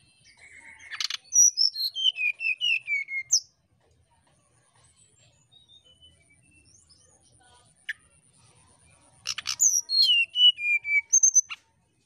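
Brown-chested jungle flycatcher singing its flute-like whistled song: two phrases, each a quick run of clear notes stepping down in pitch. The second phrase starts about nine seconds in.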